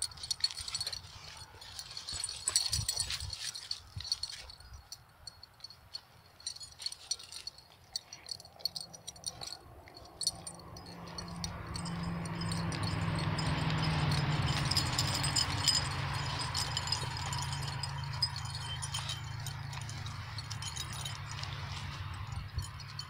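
Dog collar tags jingling and clinking in short, scattered bursts as dogs move about close by. About halfway through, a steady rushing noise builds up and lasts to the end, louder than the jingling.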